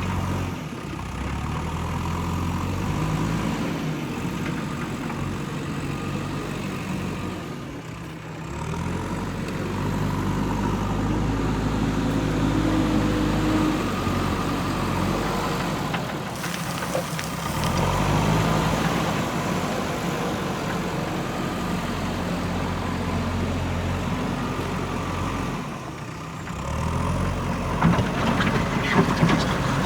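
Diesel engine of a JCB 3DX backhoe loader running under varying load, its note dropping and picking up again a few times, with a few sharp metallic clanks near the end.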